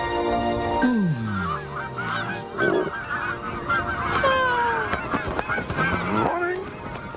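A flock of geese honking and cackling in many short, overlapping calls, opening with a downward-sliding swoop about a second in.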